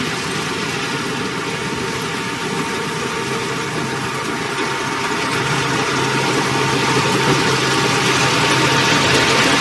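Heavy construction machine's engine running steadily, slowly growing louder.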